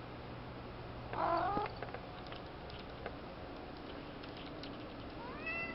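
Part-Bengal cat giving two short calls: a wavering one about a second in and a shorter one rising in pitch near the end.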